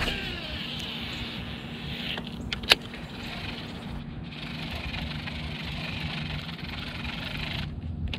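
Baitcasting reel being cranked, a steady whir as the line is wound in, with one sharp click a little under three seconds in.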